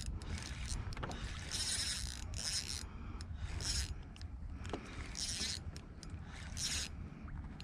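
Water lapping and slapping against a kayak's hull in short, irregular splashes, over a steady low rumble of wind on the microphone.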